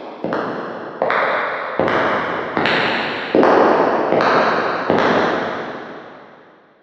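Footsteps at a steady walking pace, about one every 0.8 seconds, each step followed by a long echo as in a large reverberant space. Seven steps that grow louder, and the last one rings out and fades near the end.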